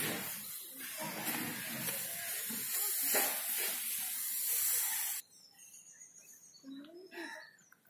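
A steady, loud hiss that cuts off abruptly about five seconds in, leaving much quieter surroundings with a few faint scattered sounds.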